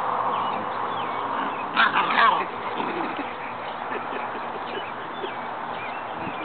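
A short, loud animal call about two seconds in, over faint chirping of small birds and a steady hiss.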